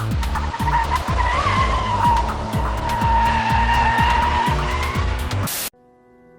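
Music with a heavy, fast beat under a sustained, wavering, high-pitched squeal. It cuts off suddenly about a second before the end.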